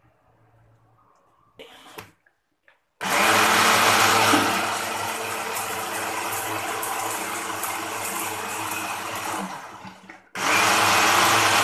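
Khind electric blender grinding a wet chili and spice paste. A brief burst about two seconds in, then it runs steadily for about seven seconds, winds down and stops, and starts again near the end.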